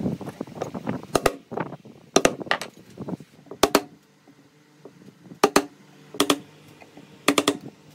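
Steel wood chisel being struck to chop a shallow recess into a wooden frame: about six pairs of sharp, ringing knocks a second or so apart, after a second of the blade scraping as it pares the wood.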